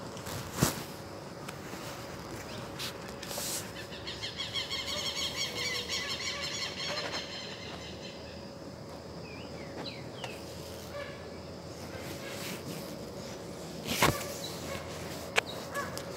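Forest ambience with animal calls: a rapidly pulsing high trill for a few seconds after the start, then a few short high chirps around the middle. Sharp clicks stand out, the loudest about half a second in and near the end.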